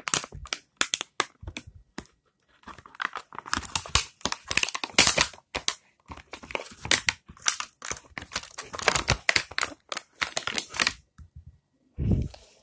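Clear plastic packaging crinkling and tearing as it is pulled off a toy foam-dart blaster, in irregular bursts with short pauses. A dull thump near the end.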